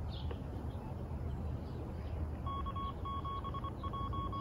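Repeater reply through a Radioddity GS-5B handheld radio's speaker: a string of long and short beeps at one steady pitch, starting about two and a half seconds in. This shows the radio has keyed up the repeater.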